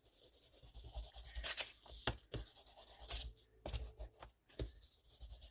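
Tea dye ink being rubbed over a paper page in quick, short, repeated strokes: a soft scratchy rubbing.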